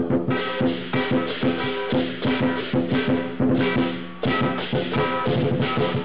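Chinese lion dance percussion: a drum beaten in a fast, uneven rhythm, with cymbals and a gong ringing on between strokes.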